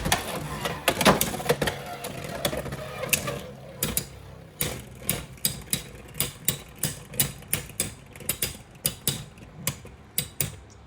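A Beyblade X top on the Turbo bit spinning in a plastic stadium, clattering against the plastic in quick clicks at first. From about three and a half seconds in it gives sharp separate clicks, two or three a second.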